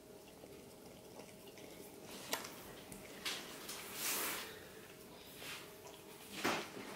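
A Staffordshire bull terrier puppy licking and mouthing a citrus wedge on a plate: a few scattered wet smacks and clicks, with a longer wet slurp about four seconds in.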